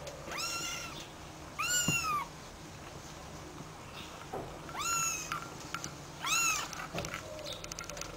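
Kittens mewing: four separate high-pitched mews, each rising then falling and lasting about half a second.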